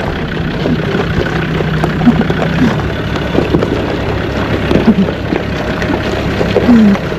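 Land Rover Discovery 2's Td5 five-cylinder turbo-diesel running at low revs as the vehicle crawls down a rocky track, with stones crunching and knocking under the tyres.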